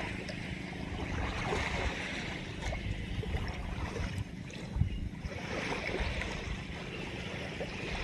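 Small waves washing onto the shore in slow swells every few seconds, with wind rumbling on the microphone and a brief bump near the middle.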